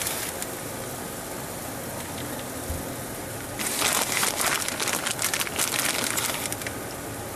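Grill sizzling steadily under a pan of cheese-topped salsa chicken, with a louder stretch of crackling from about three and a half seconds in until near the end.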